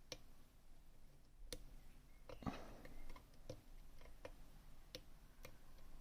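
Faint, irregular small clicks from an ASSA Twin 6000 lock being worked by hand, its pins and plug ticking as they move.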